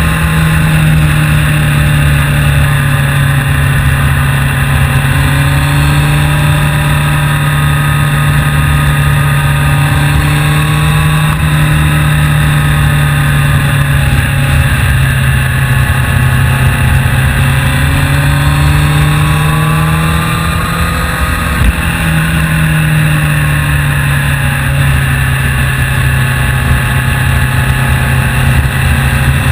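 Vehicle engine running steadily, heard on board while riding, its pitch rising and falling gently as speed changes. About three-quarters of the way through, the engine note briefly dips and there is a short knock.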